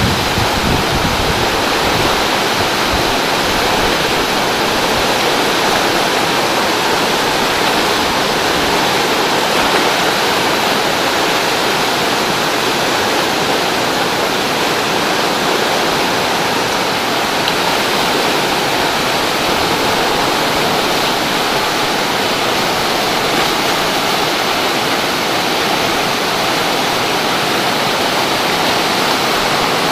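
Whitewater rapids rushing steadily over rocks, a constant even wash of water noise.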